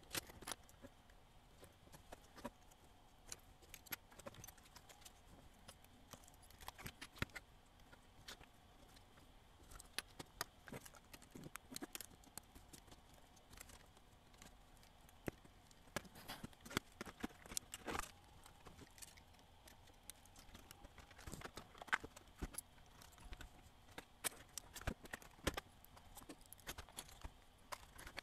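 Faint, irregular clicks and taps of small plastic and metal parts as a Sony CCD-FX425 8mm Handycam camcorder is put back together by hand.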